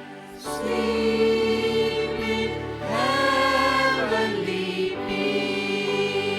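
Choir singing a Christian Christmas song over instrumental backing, holding long notes that come in about half a second in.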